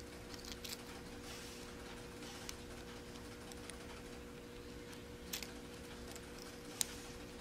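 Small beads clicking against each other and the wire as they are threaded onto a wire leader by hand: a few sharp, scattered clicks over a faint steady hum.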